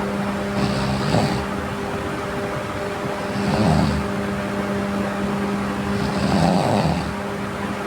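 A sleeping person snoring, three breaths about three seconds apart, each with a hissing rasp, over a steady low hum.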